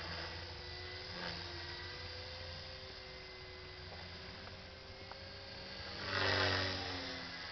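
Align T-Rex 450 SE electric RC helicopter in flight: a steady whine from its motor and rotor blades that drifts in pitch as it is flown. It grows loudest about six seconds in, and then the pitch drops.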